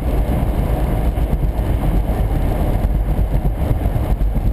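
Steady low rumble of a car driving on a wet highway at about 80 km/h, heard from inside the car: tyre and road noise mixed with the engine running.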